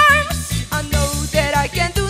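A boy's voice singing into a handheld microphone over an instrumental backing with a steady beat. A long held note with vibrato ends just after the start, the backing carries on alone briefly, and a new sung phrase comes in over the second half.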